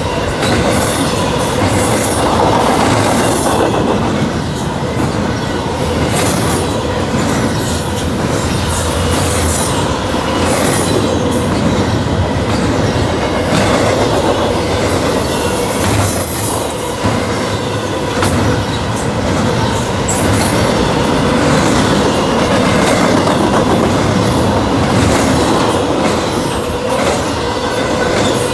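Double-stack intermodal freight train passing close at speed: the steady rumble and rattle of the cars, with the wheels clicking irregularly over the rail joints.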